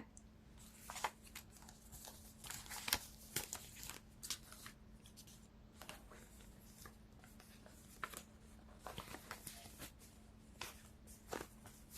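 Faint, irregular rustles and light clicks of a deck of cards being handled and shuffled, over a faint steady hum.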